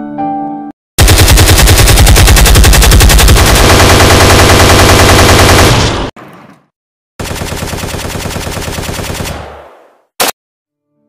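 Machine-gun fire sound effect: a long, very loud burst of rapid shots, then a quieter second burst that fades away, and one short shot near the end.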